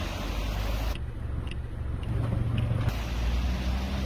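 Low, steady rumble of a motor vehicle's engine and road noise, with its character changing abruptly about a second in and again near the three-second mark.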